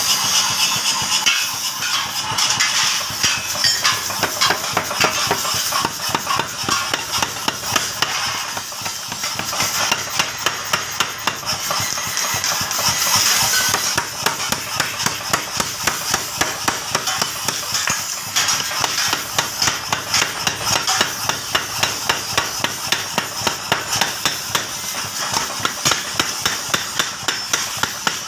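Mechanical power hammer pounding red-hot steel between its dies in quick, even blows, about three a second, as a garden trowel blank is forged. In the first half a steady hiss from the forge fire runs under the blows.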